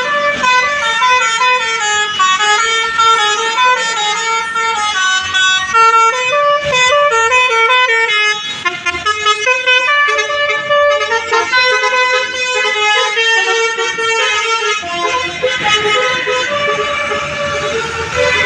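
A bus's multi-tone 'telolet' horn playing a continuous melody of quick stepped notes, loud throughout.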